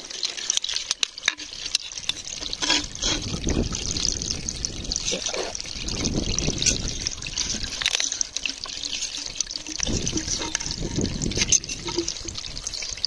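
Water trickling and sloshing in shallow seawater, with scattered sharp clicks and two stronger surges of sloshing.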